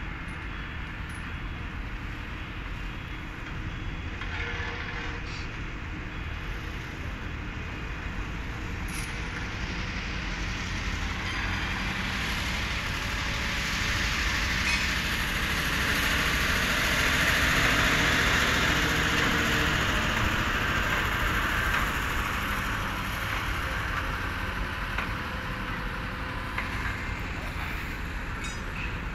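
Steady low rumble of a heavy diesel engine, with a rushing hiss that swells to its loudest around the middle and then fades.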